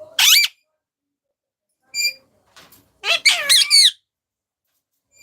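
Pet parrot squawking: one sharp rising shriek near the start, a short call about two seconds in, then a rapid run of warbling squawks about three seconds in.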